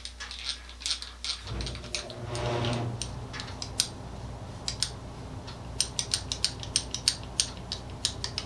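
Stanley Handyman eggbeater hand drill being handled and turned, its gears and metal parts giving irregular clicks and ticks. A low steady hum comes in about a second and a half in.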